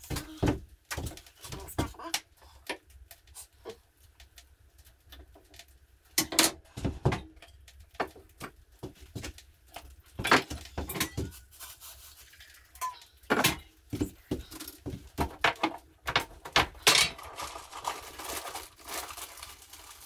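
Irregular knocks, clinks and handling noises of cups and containers being set down and moved on a wooden counter. Near the end comes a stretch of rustling, as from a packet being opened.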